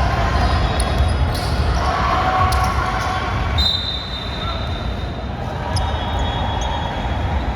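Basketball game sounds in a gym: a ball bouncing on the court and scattered knocks of play, with a brief high sneaker squeak about halfway through, over steady hall rumble and faint players' voices.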